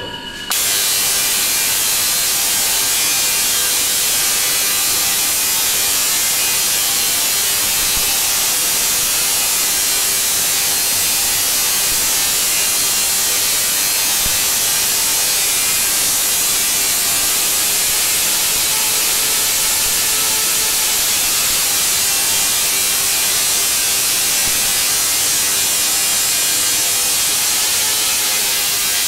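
Tesla coil firing, its sparks discharging into the air as a loud, steady noise that switches on about half a second in and keeps an even level.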